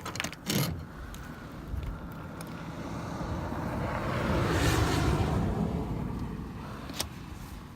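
A car driving past: its tyre and engine noise swells to a peak a little past halfway and then fades away. A few light clicks at the start and a single sharp click near the end.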